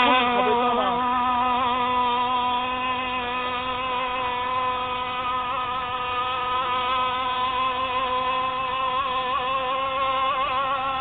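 Two-stroke CY 26cc petrol engine of a homemade radio-controlled rigger boat running at speed out on the water. It gives a steady, high-pitched drone that wavers slightly in pitch and is a little louder at first.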